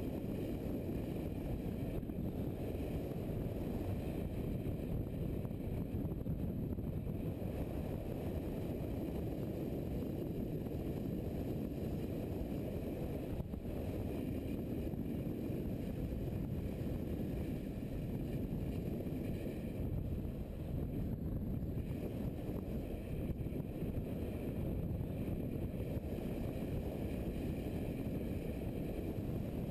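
Steady muffled rumble of wind and engine from a motorcycle cruising at road speed, with wind pressing on the microphone.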